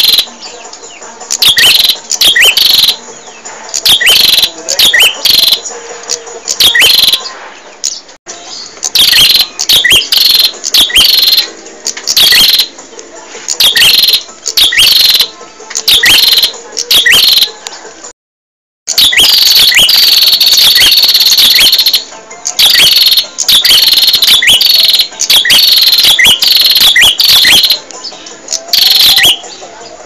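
Prenjak (prinia) calling: loud, sharp, high chirps that drop quickly in pitch, in quick clusters repeated about once a second. Just past the middle the sound cuts out completely for about half a second, then comes a longer unbroken run of chirping.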